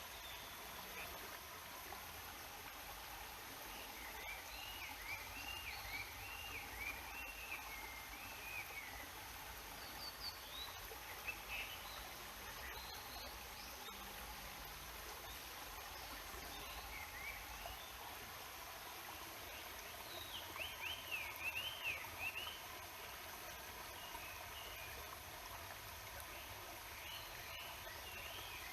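Steady rushing of a river's water, with a songbird singing quick warbling phrases of up-and-down notes, first a few seconds in and again about twenty seconds in, and a few short sharp calls in between.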